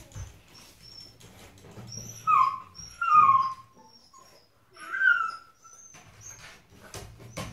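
Puppy whining: three short, high whimpers that each fall in pitch, about two, three and five seconds in, with fainter squeaky whines in between.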